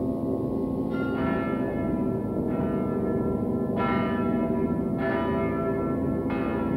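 Clock-tower bell tolling slowly, five strokes about a second and a quarter apart, each ringing on over a deep sustained drone.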